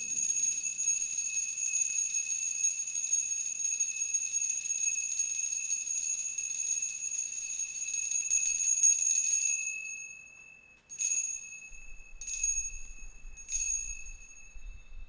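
Altar bells rung at the elevation of the consecrated host: about ten seconds of continuous shaken ringing, then three short separate rings.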